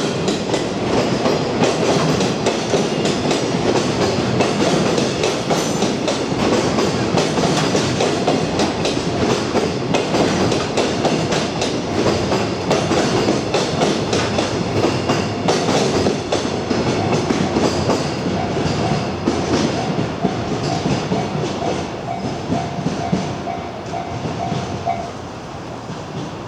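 A freight train passing close by over a level crossing: a continuous rumble of wagons with rapid clickety-clack of wheels over the rail joints. It drops in level near the end as the last wagons go by.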